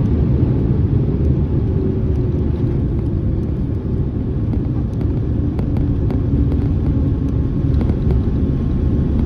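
Jet airliner's landing rollout heard from inside the cabin: a steady low rumble of engines and wheels as the aircraft decelerates along a wet runway.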